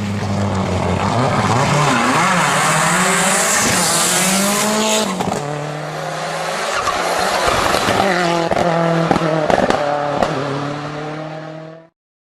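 Turbocharged car engine running hard at high revs, with tyre squeal and a rising hiss that cuts off sharply about five seconds in. The engine note then drops and holds steady under a run of sharp, rapid clicks before everything stops abruptly near the end.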